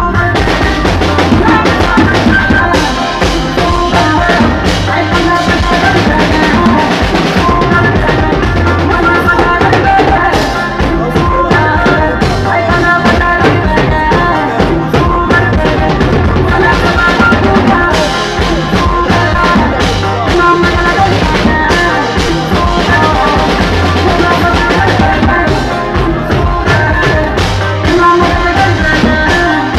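Acoustic drum kit played live: bass drum, snare, toms and cymbals in a fast, busy groove. Loud backing music with melody runs under the drumming.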